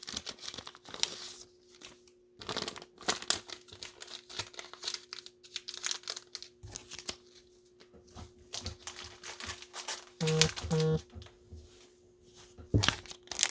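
Plastic crinkling and rustling from trading-card packaging and sleeves being handled, in irregular bursts, with two short low tones about ten seconds in.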